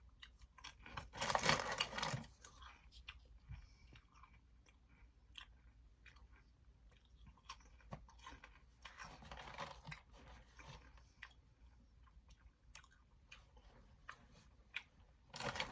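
A person chewing crunchy Cheez-It baked cheese crackers, with a louder crunching bite about a second in and scattered small crunches throughout.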